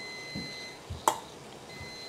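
Stainless steel mixing bowl set down on a stone countertop: one light clack about a second in, after a couple of soft handling thuds. Under it a faint steady high beep-like tone stops partway and comes back near the end.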